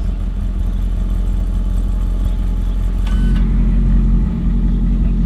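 Audi RS6 Performance's 4.0 TFSI twin-turbo V8 with Akrapovic exhaust running steadily at low revs, a deep even engine note; about three seconds in the note grows fuller and a brief high beep sounds.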